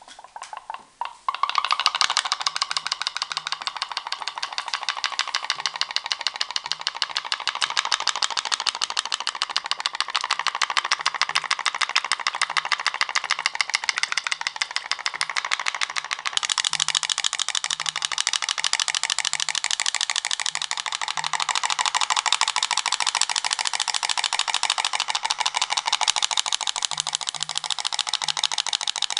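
Homemade putt-putt (pop-pop) boat's candle-heated aluminum boiler pouch popping in a fast, steady rattle as it flexes. Water inside flashes to steam and condenses over and over, pumping water through the stern straws to drive the boat. A few separate pops about a second in settle into the continuous rapid putt-putt.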